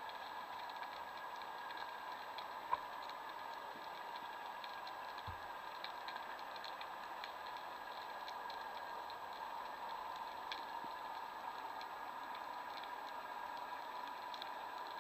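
Underwater ambience: a faint steady hiss and hum with a sparse crackle of tiny clicks, and a single short knock just under three seconds in.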